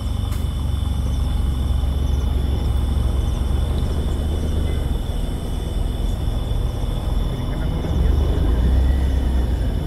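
Car engine running steadily, a low rumble, with a steady thin high-pitched tone above it.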